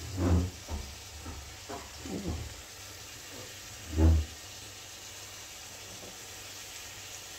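Ground beef and vegetables sizzling gently in a frying pan, a steady faint hiss. A few brief low voice sounds break in, the loudest near the start and about four seconds in.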